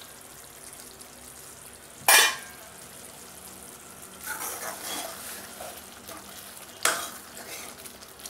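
A metal spoon stirring thick curry gravy at a full boil in a metal kadhai, scraping around the pan. Two sharp metal clanks ring out, one about two seconds in (the louder) and one near seven seconds.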